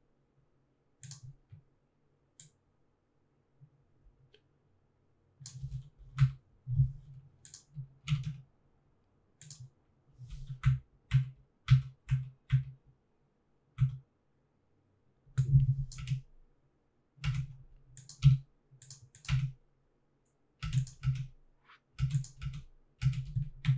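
Computer keyboard keystrokes, including arrow keys and the spacebar, pressed in irregular clusters. Each press gives a short click with a dull low thud. The first five seconds are nearly quiet.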